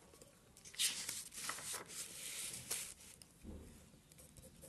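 Paper rustling for about two seconds as a notebook page is handled and turned, followed by a dull thump a little over three seconds in.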